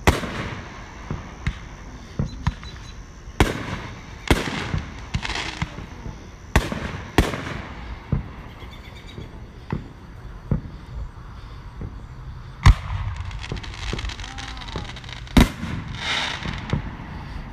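Aerial fireworks shells bursting: a string of sharp booms at uneven gaps of one to several seconds, some followed by a spell of crackling.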